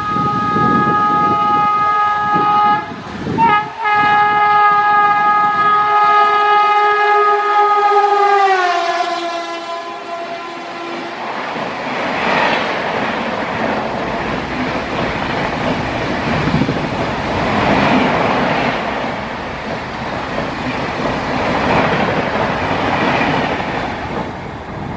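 Electric locomotive of a Rajdhani Express sounding a long horn as it approaches at about 130 km/h, broken briefly about 3 seconds in, its pitch dropping as the locomotive passes. Then its coaches rush past at speed, the wheel and rail noise swelling and fading in waves until the end.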